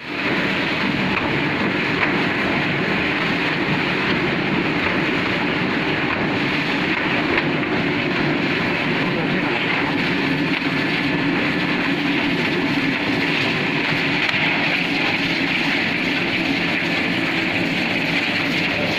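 Mushroom baglog waste separator machine running, a steady, unbroken mechanical noise.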